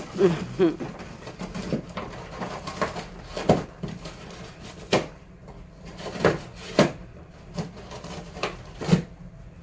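Malamute tearing and chewing a cardboard box: irregular sharp rips and crunches of cardboard, several loud ones spread apart.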